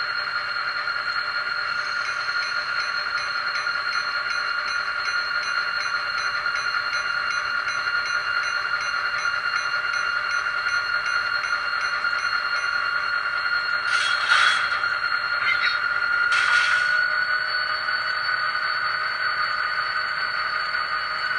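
The sound decoder of an Atlas N scale Southern Pacific SD35 locomotive is playing diesel prime-mover sound through its tiny onboard speaker as the model runs along the track. It is a steady hum with a strong high tone and a faint regular ticking of about two a second for much of the time. Two short, louder noisy bursts come about two-thirds of the way through.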